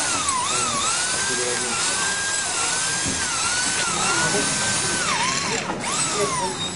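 Corded electric drill running while drilling a hole. Its motor whine keeps sagging in pitch and picking back up, several times a second or so, over a steady hiss.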